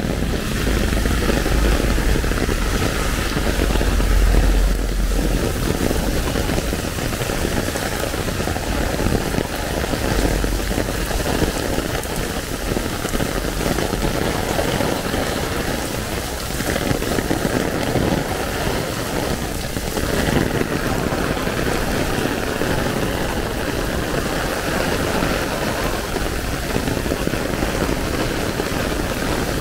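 Heavy rain drumming steadily on an umbrella, with rain splashing on the street. A low rumble of street traffic is strongest in the first several seconds.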